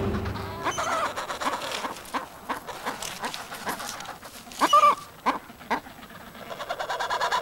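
Adélie penguin colony: short pitched calls, one about a second in and a louder one a little past halfway, among scattered clicking and chattering sounds.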